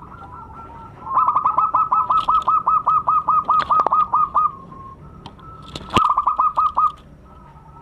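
Zebra dove cooing its rapid staccato song: a fast run of short, evenly repeated notes, about seven a second for some three seconds, then a second, shorter run of about a second. A single sharp click sounds at the start of the second run.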